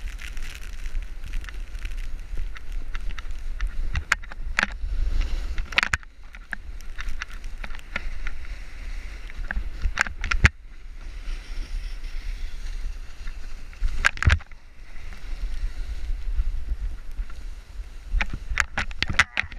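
Wind rumbling on a moving action camera's microphone during a run down a groomed snow slope, over the hiss of edges scraping across the snow. Several sharp knocks break in, a cluster about four to six seconds in, others around ten and fourteen seconds and near the end.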